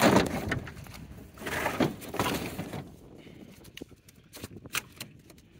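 Live catfish flopping and slapping on the aluminium floor of a boat as they are handled. There is a burst of thrashing at the start and another about a second and a half in, then scattered light knocks.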